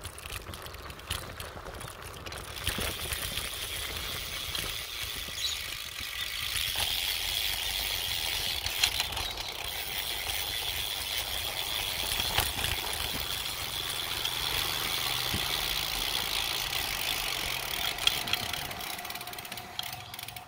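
Bicycle rear hub's freewheel ratchet buzzing steadily as the bike coasts, over wind and tyre noise on the road; it grows louder about a third of the way in.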